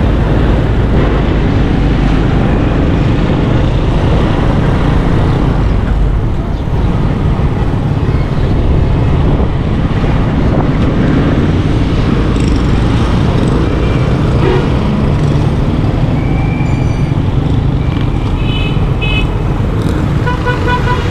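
Busy street traffic of auto-rickshaws and motorcycles, with a steady mix of engine and road noise. Short horn beeps sound several times in the second half, with quick runs of repeated toots near the end.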